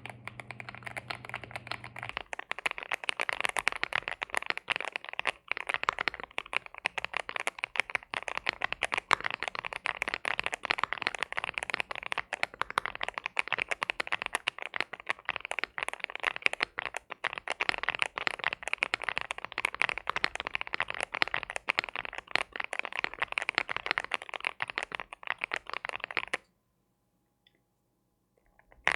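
Fast, continuous typing on a Cidoo v75 mechanical keyboard with CIDOO Matte linear switches and PBT Cherry-profile keycaps. The typing stops suddenly about 26 seconds in.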